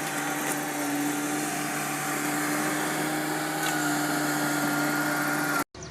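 Bobcat skid steer's diesel engine running steadily at a constant pitch, then cutting off suddenly near the end.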